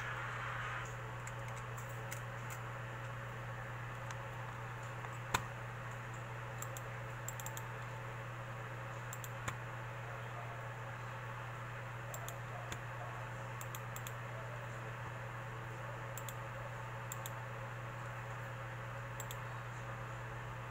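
Scattered light clicks of a computer mouse over a steady low hum and hiss, the sharpest click about five seconds in.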